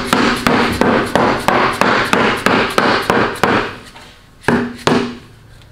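Red mallet tapping rapidly on a 1966 Ford Falcon engine's valve cover to break it loose, about four blows a second, then a short pause and two more spaced blows near the end.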